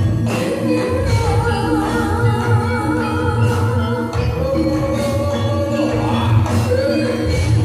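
Javanese gamelan music accompanying a jathilan dance: a singer's wavering, vibrato-laden voice over ringing metallophones and regular drum strokes.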